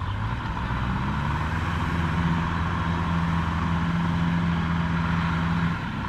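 Farm tractor's diesel engine revving up about a second in and holding a steady high note as it hauls a trailer loaded with rice sacks, then dropping back just before the end.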